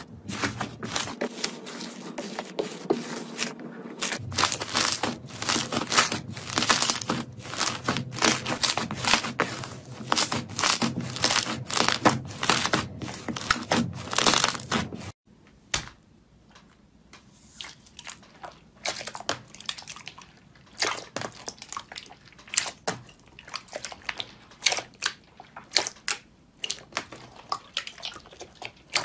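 Slime being squished and poked: dense crackling and sticky popping clicks, then after a sudden cut about halfway through, sparser, quieter pops and clicks.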